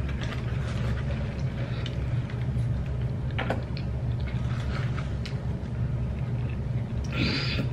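Steady low background hum with quiet eating sounds over it: a faint click of a plastic fork and a short noisy sip from a cup near the end.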